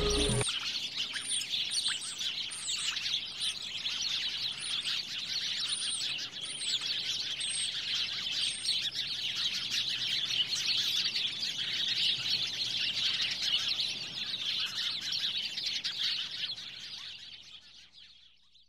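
A dense chorus of many small birds chirping together, continuous and busy, fading out over the last couple of seconds.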